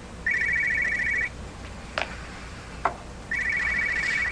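Mobile phone ringing: two rings of a fast electronic trill, each about a second long and two seconds apart, with two short clicks between them.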